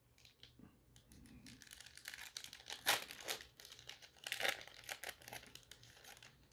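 Foil wrapper of a Panini Select trading card pack being torn open by hand and crinkling, in a run of short crackles that are loudest about three and four and a half seconds in.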